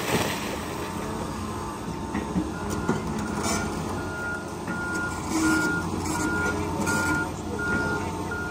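Excavator backup alarm beeping at one pitch, about three beeps every two seconds, starting a couple of seconds in, over the steady running of the excavator's diesel engine. A few knocks of breaking timber debris come in the first few seconds.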